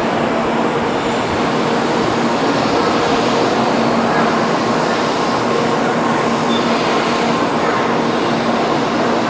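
Kyushu Shinkansen Sakura train pulling into a station platform: a steady rolling rumble with a low, even hum.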